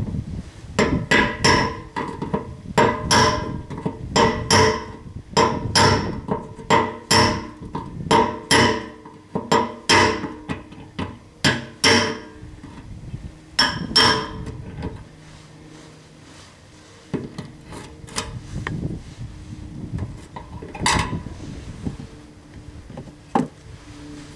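A hammer drives a brass punch against the steel lock ring on the fuel pump of a 1987 Ford F-150's rear fuel tank, trying to turn the ring. The ringing metal blows come about two a second for roughly fourteen seconds, then a few scattered taps follow. The ring is seized and won't budge.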